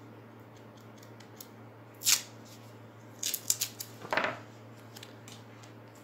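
A roll of white tape being handled and torn: a sharp rip about two seconds in, a quick run of small clicks, then a second, lower rasp about four seconds in.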